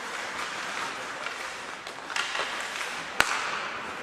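Ice hockey play in an indoor rink: a steady hiss of skating and arena noise, with a few light stick clicks and one sharp crack about three seconds in.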